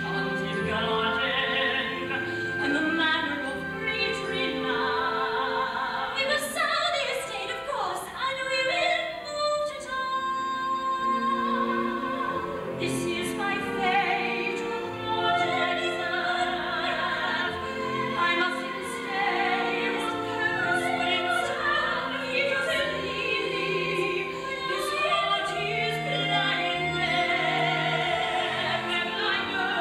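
A woman singing a musical-theatre song in a trained, operatic style over instrumental accompaniment.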